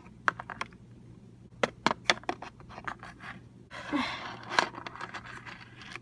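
Light clicks and taps of small plastic toy figures being handled and moved across a surface, with a short breathy rustle about four seconds in.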